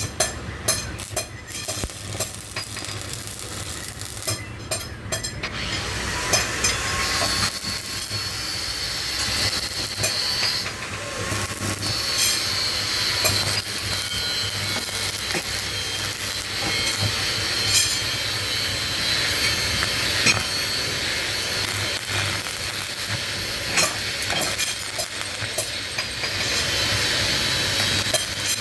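Metalwork on a motorcycle silencer: a steady, loud hissing, scraping noise with many short clicks and knocks throughout.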